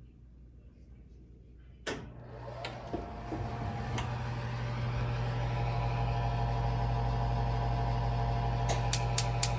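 Oven control knob switched on with a sharp click, then the range's cooling fan starting up with a steady hum that builds over several seconds. Near the end the oven's spark igniter starts clicking, about four times a second.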